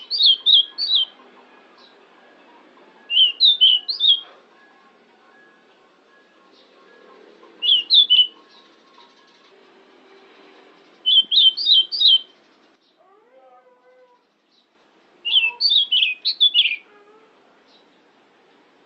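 Pied bushchat (decu) singing: five short phrases of quick high whistled notes, each about a second long, coming every three to four seconds.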